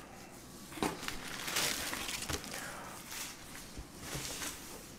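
Handling of a cardboard box and its plastic air-cushion packing: irregular rustling and crinkling with a sharp click about a second in.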